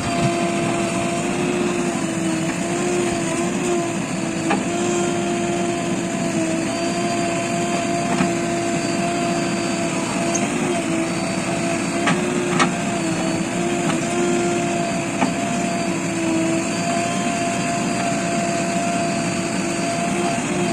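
Heavy diesel machinery running steadily with an even, slightly wavering whine, and a few sharp knocks.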